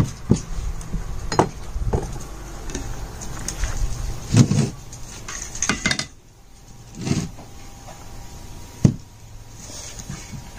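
Scattered knocks and clinks of kitchenware being handled on a table, including a slow cooker's glass lid and a plastic kettle, with one sharp knock near the end.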